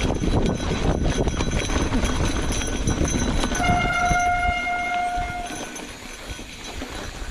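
Mountain bike rolling over rough trail with a heavy rumble of wind and tyre noise. About halfway through, a brake squeals on one steady high note for about two seconds. The rumble then dies down as the bike slows.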